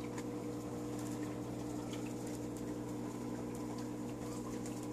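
Steady hum of aquarium equipment made of several fixed tones, with faint scattered ticks over it.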